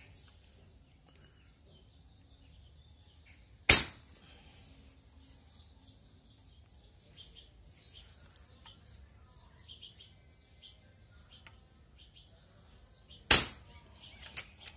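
Two shots from a Barra 1866 Cowboy CO2 lever-action BB rifle, about ten seconds apart, each a single sharp crack. A smaller, sharp click follows about a second after the second shot.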